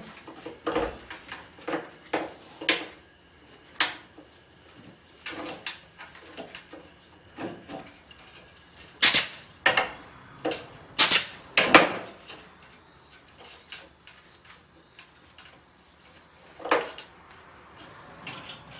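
Chicken wire being cut and worked by hand, with scattered sharp clicks and rattles. Between about nine and twelve seconds in, a pneumatic C-ring gun fires a quick run of loud, sharp shots, clinching rings onto the wire, with one more shot near the end.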